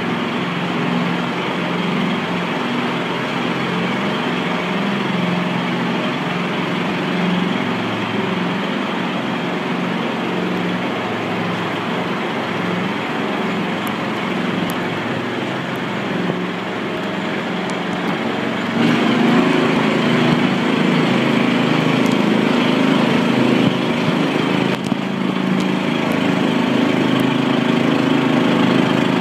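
Small engine of an open off-road ride vehicle running steadily as it drives along, heard from on board. It picks up and gets louder about two-thirds of the way through.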